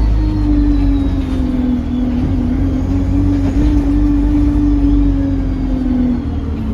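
Bus engine running under way with a steady turbocharger whine over a low rumble; the whine wavers slightly and eases off near the end.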